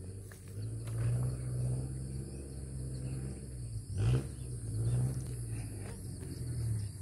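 An engine running steadily, its pitch rising briefly about four seconds in.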